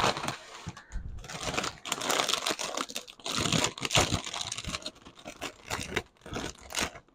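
Plastic cereal bag crinkling and rustling in repeated bursts as it is handled and torn open.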